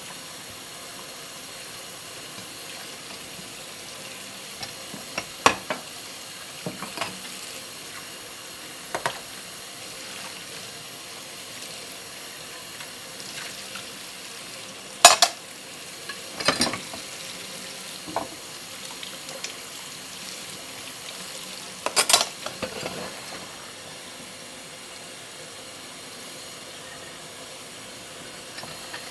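Dishes being washed by hand at a kitchen sink: a steady hiss of water, with scattered clinks and clatters of dishes and cutlery, the loudest about fifteen and twenty-two seconds in.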